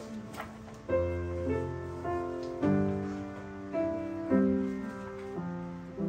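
Upright piano playing a slow tune in chords, a new chord struck every half second to a second, each ringing on until the next.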